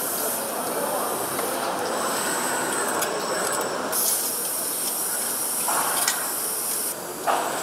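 Engine assembly-line machinery: a steady mechanical din with high hissing that switches on and off every few seconds, plus scattered sharp clicks from the automated stations.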